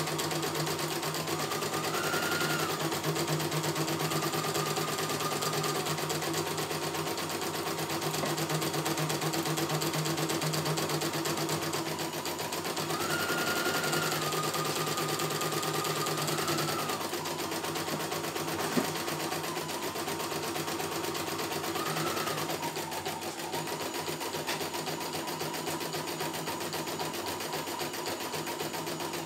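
CNY E900 computerized embroidery machine stitching a design, with fast, even needle strokes. Under the strokes is a steady whine that steps up in pitch and back down several times, and the machine cuts off at the very end.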